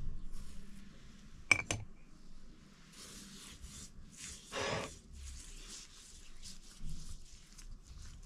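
Kitchen handling sounds during food preparation: two quick sharp clicks about a second and a half in, then soft rustling and light patter with a brief louder scrape a little later.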